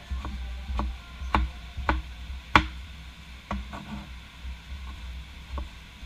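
Kitchen knife chopping tomatoes on a wooden chopping board: irregular knocks of the blade striking the board, roughly one every half second, the sharpest about two and a half seconds in.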